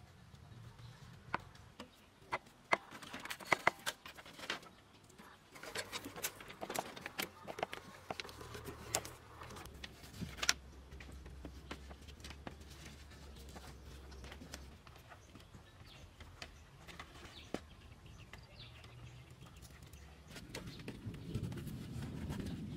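Irregular wooden knocks and clicks as rough wooden poles are handled and laid onto a timber-and-bamboo frame, busiest in the first half, with a louder rustle near the end.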